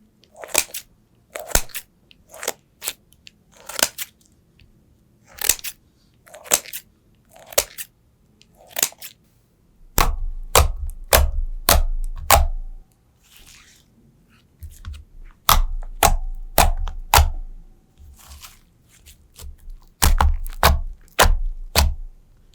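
Slime being handled by hand: a run of sharp pops and crackles, coming more densely with low thuds from about ten seconds in.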